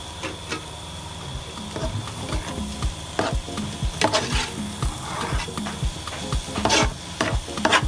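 A spoon stirring and scraping through thick egusi soup with chopped bitter leaf in an aluminium pot, with a few louder scrapes about three, four and seven seconds in.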